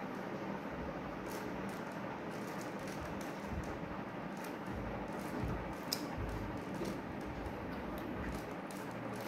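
Light plastic clicks of a 3x3 Rubik's cube being turned layer by layer, scattered irregularly, with one sharper click about six seconds in, over a steady background hiss.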